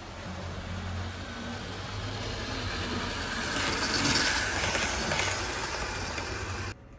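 00 gauge model train running along the track and passing close by, a steady low motor hum under a rumbling running noise that builds to its loudest about four seconds in. The sound cuts off abruptly near the end.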